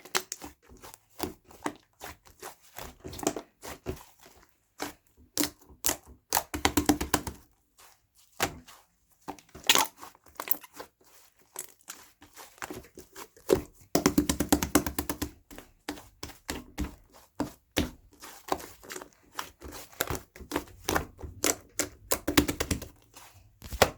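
Irregular sharp clicks and knocks, broken by three bursts of rapid clicking that each last about a second.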